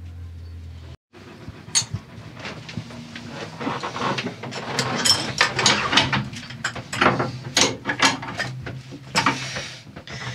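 A low steady hum that cuts off about a second in, then a run of irregular sharp metallic clicks, taps and clinks from spanners working on and against the nuts and bolts of a Yanmar marine diesel engine being tightened by hand.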